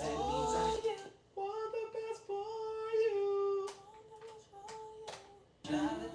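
A song played back in the studio: a high sung voice holds long, drawn-out notes on its own, with the beat and bass dropping out after about a second and coming back in near the end. A few sharp clicks sound in the middle.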